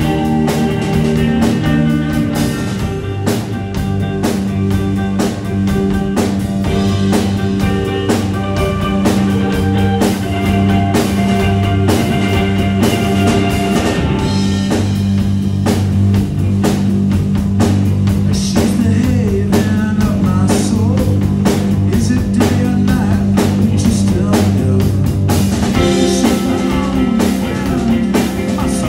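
Electric rock band playing loud in a rehearsal room: two electric guitars, a baritone bass holding a low note and a drum kit keeping a busy, steady cymbal-driven beat.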